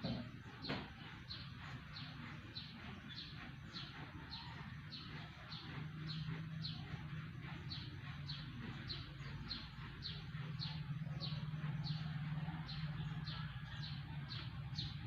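A bird chirping over and over, short high chirps about three a second, with a low steady hum joining in about six seconds in.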